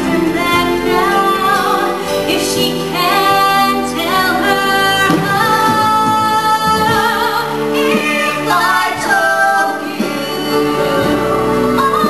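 A woman singing a musical-theatre song over instrumental accompaniment, holding long notes.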